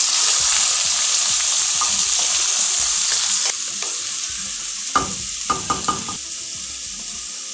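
Chopped onion sizzling loudly in hot oil in a kadai, just tipped in, the sizzle easing somewhat past halfway. A wooden spatula stirs and scrapes through the onions in several short strokes near the end.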